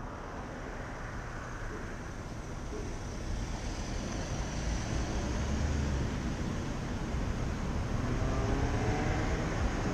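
Road traffic at a city intersection: cars driving and turning past, with one engine rising in pitch as it speeds up near the end.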